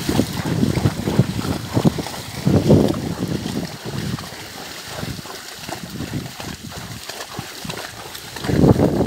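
Horses wading through shallow floodwater, their hooves splashing irregularly with each step, the splashing growing louder near the end.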